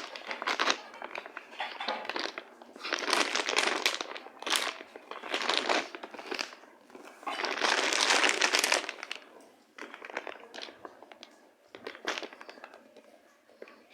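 Crinkling, crumpling noise in irregular bursts, most about a second long, with short pauses between.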